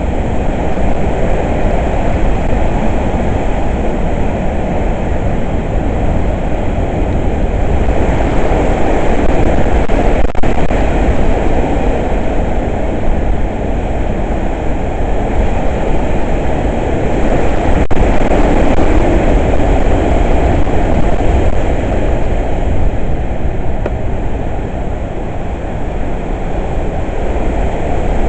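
Hurricane wind blowing hard in gusts, heavy on the microphone as a deep, steady rush. It swells about a third of the way in and again around two-thirds, and eases briefly near the end.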